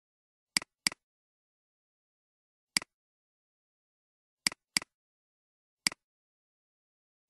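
Computer mouse clicks, six in all: a quick pair near the start, one in the middle, another quick pair and one more near the end, with dead silence between them.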